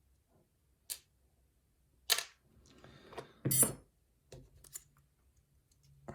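Several sharp clicks and small knocks from a pin-tumbler lock and its picking tools being handled, about five in all, the loudest about three and a half seconds in.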